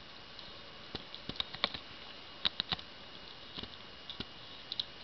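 Mother cat licking her newborn kitten: irregular wet clicks and smacks of her tongue, some single and some in quick little runs.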